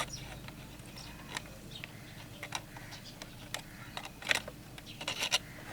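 Scattered light clicks and taps from a soldering iron, solder and wire being handled while the wire ends are tinned with solder, with a small cluster of taps near the end.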